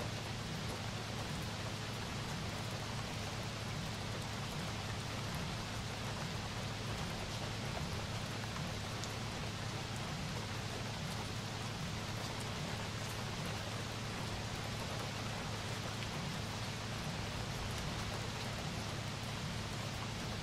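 Steady rain falling, an even hiss that doesn't change, with a steady low hum beneath it and scattered faint drip ticks.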